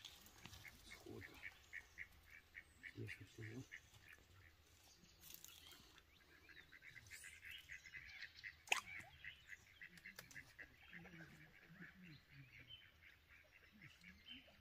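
Faint duck quacking, over a steady run of faint high chirps repeating about five times a second. A single sharp click a little past halfway.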